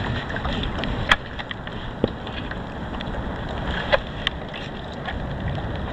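Steady water and wind noise around a fishing kayak on the open ocean, broken by a few sharp clicks or knocks about a second, two seconds and four seconds in.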